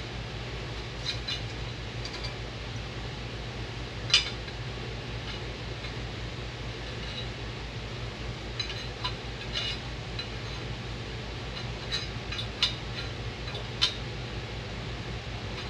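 Scattered light metallic clicks and clinks of tools and sheet metal being handled, the sharpest about four seconds in, over a steady low shop hum.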